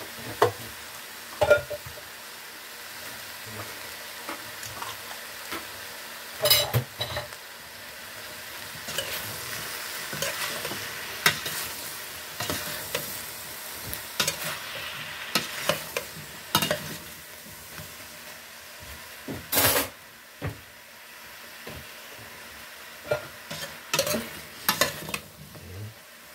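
Pork, broccoli and green beans sizzling in a stainless steel pot while a metal spoon stirs them, scraping and clanking against the pot. The louder clanks come about six seconds in, just before twenty seconds, and twice near the end.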